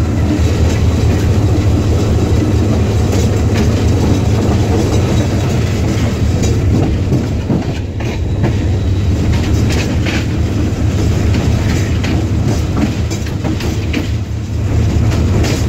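Diesel-electric locomotive running along the track, its engine giving a steady low drone, with the wheels clicking over rail joints a few times.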